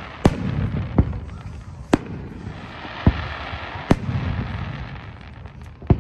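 Aerial firework shells bursting overhead: about six sharp booms at irregular intervals of roughly a second, each trailing off in a low rumble.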